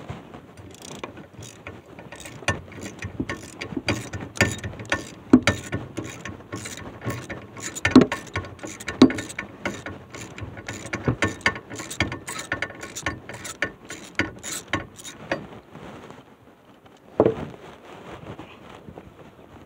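Socket ratchet clicking in quick back-and-forth strokes as a bolt is undone on an old car's rear axle housing. The clicking stops about three-quarters of the way through, followed by a single knock near the end.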